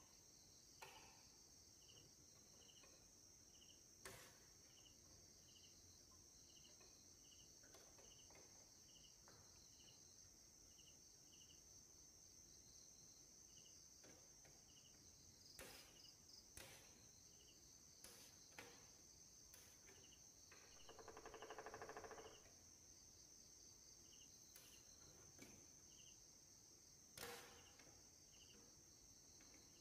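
Near silence broken by faint, scattered clicks of a metal pry tool against a plastic TV cabinet, with a short rasping scrape about two-thirds through. Behind it runs a faint, steady, high chirping of insects.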